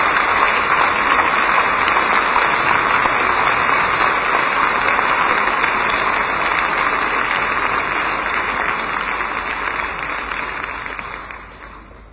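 Theatre audience applauding steadily, dying away near the end.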